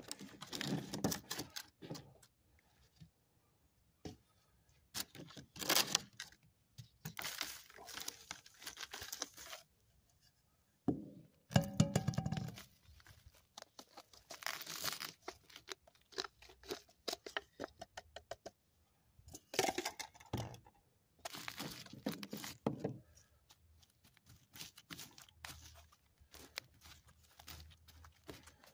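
Clear plastic container crinkling and potting mix being poured and shaken from a plastic cup into it, in irregular rustling, scraping bursts with a few knocks and a brief squeak. Near the end, fingers press and pat the soil in the container.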